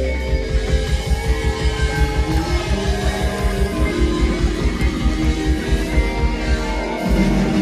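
Live rock band playing electric guitar over bass and a drum kit with a fast, even beat. About seven seconds in, the band moves into a fuller, slightly louder section.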